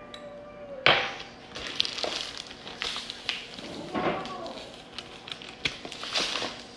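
A glass measuring cup set down on a counter with a sharp knock, then a plastic zip-top bag crinkling and rustling as granulated sugar is poured from it into the cup.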